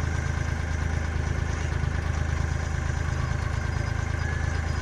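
Sailboat's engine running steadily with an even low drone, motoring because the wind has died.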